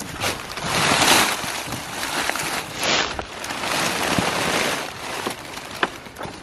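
Dry grass and brush rustling in swells, with scattered sharp crackles.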